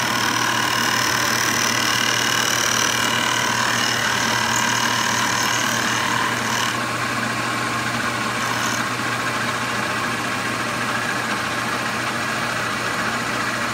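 Milling machine running, its cutter surfacing the warped top flange of a Tillotson Model A Ford carburetor: a steady motor hum under a high cutting whine. The whine stops about halfway through as the cutter clears the part, leaving the machine running.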